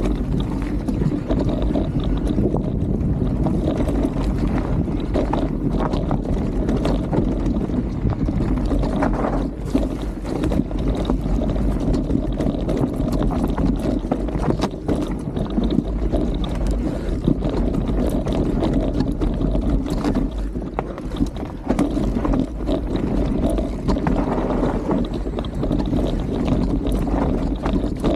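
Mountain bike rolling down a rough dirt-and-rock trail: a steady rumble of tyres and wind on the microphone, with frequent small knocks and rattles as the bike goes over bumps.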